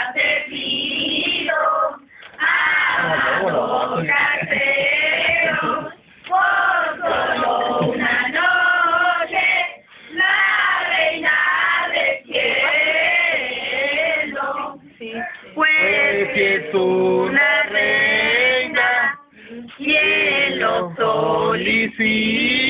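A group of men and women singing a Mexican posada song together, in sung phrases broken by short pauses about every four seconds.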